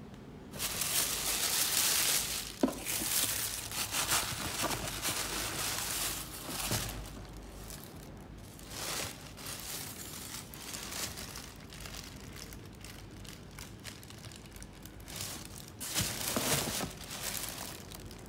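Black wrapping paper crinkling and rustling as it is pulled open inside a cardboard shipping box, loudest in the first several seconds, with one sharp tap a couple of seconds in. Shorter rustles of paper and cardboard follow later as the shoebox is handled.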